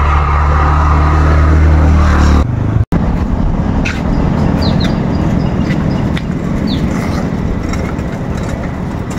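Motor vehicle engine running, a steady low hum that cuts off abruptly about three seconds in, followed by a rougher steady rumble with a few short bird chirps.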